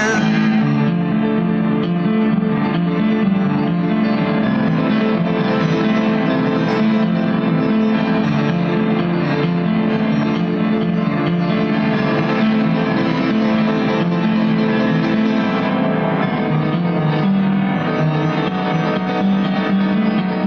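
Instrumental music: guitar playing with keyboard accompaniment, steady throughout.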